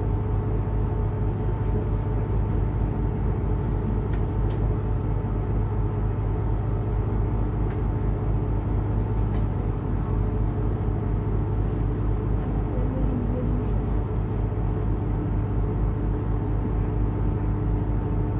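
Tour boat's motor running steadily under way, a low, even drone with a constant hum, heard from on board.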